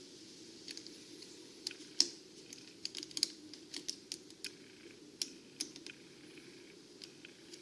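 A wrench clicking and clinking on a car battery's positive terminal as the cable clamp nut is tightened down, with irregular sharp metal clicks, the loudest about two seconds in and a quick cluster around three seconds.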